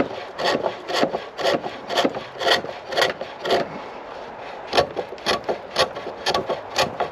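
Chisel cutting a spinning chestnut spindle on a pole lathe: a rasping scrape about twice a second, one with each stroke of the lathe, broken by a short pause about four seconds in.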